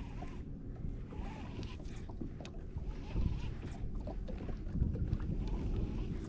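Wind buffeting the microphone: a low, fluttering rumble with a few faint ticks over it, growing slightly louder toward the end.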